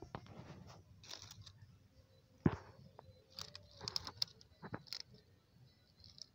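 Dry leaf litter crackling and rustling in short scattered bursts, with one sharp knock about two and a half seconds in and a cluster of bright crackles a second later.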